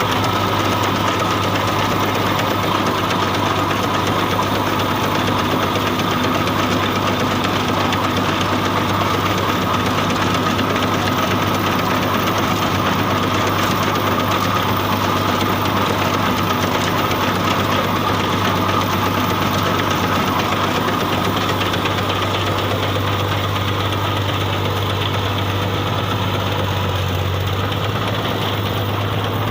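Al Ghazi tractor's diesel engine running steadily.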